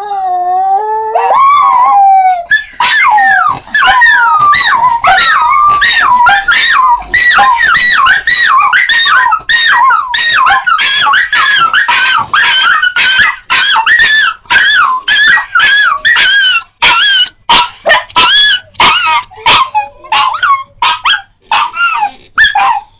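Miniature Schnauzers howling: one long rising howl opens, then short high yipping howls follow one after another, about two a second, breaking up with longer gaps near the end.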